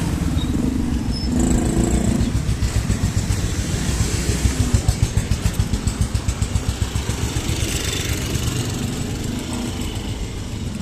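A motor engine running with a steady low rumble that throbs in quick pulses for a few seconds in the middle.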